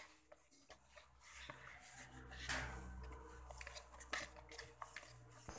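Faint squishing and rubbing of hands kneading a soft flour-and-margarine dough in a plastic bowl, kneaded until it stops sticking to the hands. A low hum runs underneath from about two seconds in and stops shortly before the end.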